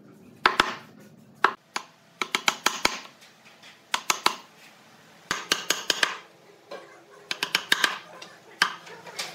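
Wooden mallet striking a chisel to chop out a mortise in a hardwood slab: sharp knocks in quick bursts of several blows, with short pauses between bursts.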